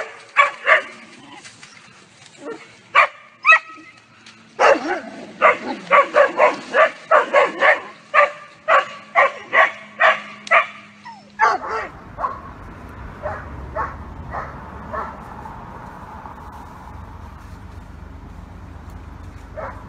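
Dogs barking repeatedly and loudly, in a fast run of about two to three barks a second. About halfway through the barking drops to fainter, scattered barks over a low steady rumble.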